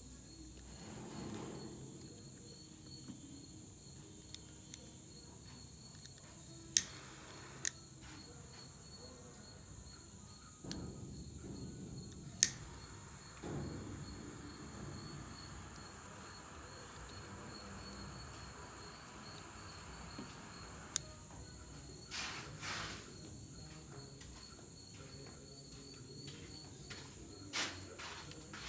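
Crickets chirping steadily, with a few sharp clicks of a gas torch lighter being sparked and a steady hiss of its flame for several seconds in the middle.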